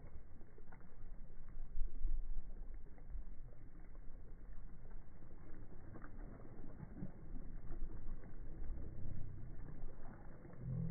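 Beach ambience: a low, uneven rumble of wind and surf with no clear tones.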